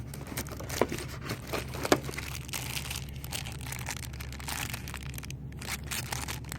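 Packaging being handled and rummaged through, crinkling and rustling with several sharp clicks and snaps. The loudest snaps come about one and two seconds in.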